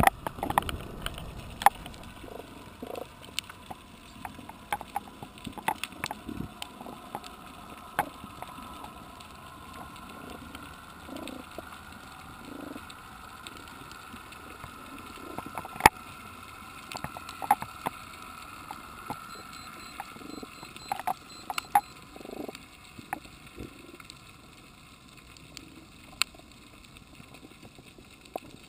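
Underwater ambience: scattered sharp clicks and pops over a low hiss, with a faint steady whine from about a second in until about twenty-two seconds in. A brief loud rush of water right at the start.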